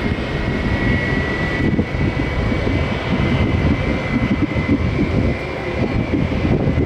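Boeing 737 Classic's CFM56-3 turbofan engines running loud and steady: a dense rumble with a high whine held over it.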